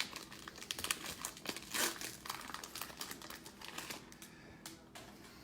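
Cellophane wrapper of a trading-card cello pack crinkling and tearing as it is ripped open by hand. A dense run of sharp crackles is loudest about two seconds in and thins out near the end.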